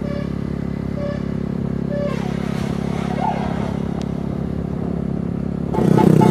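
Tour bus engine running steadily, with a few short horn notes about once a second at the start. Just before the end, a loud multi-tone telolet horn melody starts.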